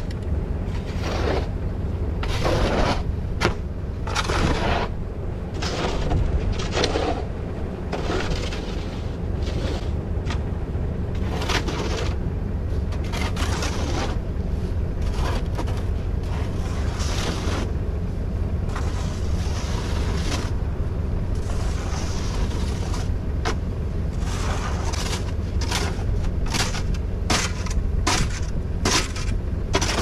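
Snow shovel scraping snow and ice off a driveway's icy layer in repeated strokes, roughly one every second or so, over a steady low rumble.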